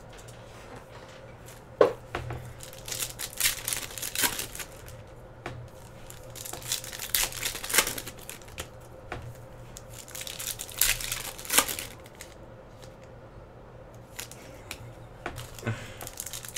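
Trading-card pack wrappers being torn open and crinkled in irregular bursts, with a sharp click about two seconds in.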